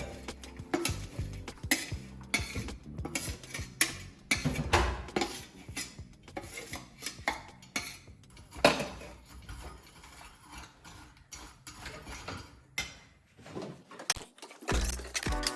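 A utensil stirring jaggery pieces in a frying pan, with irregular clinks, knocks and scrapes against the pan.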